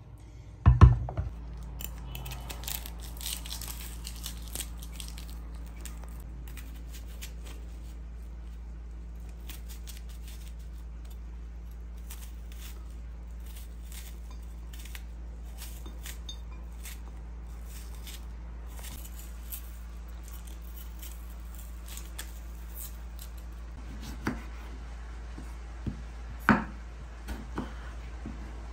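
Kitchen knife cutting through a raw onion in faint crisp clicks, then slicing a tomato on a bamboo cutting board, with a few sharp knocks of the blade on the board near the end. A loud thump about a second in.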